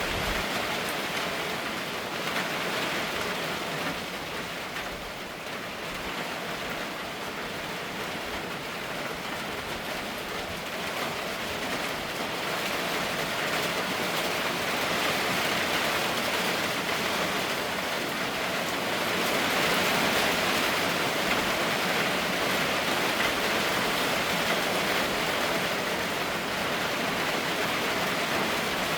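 Steady rainfall, a continuous hiss that swells louder in the second half, heaviest about two-thirds of the way through.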